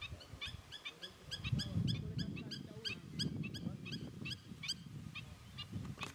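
Black-winged stilts giving a rapid series of short, sharp high calls, about three or four a second, with a low rumble underneath.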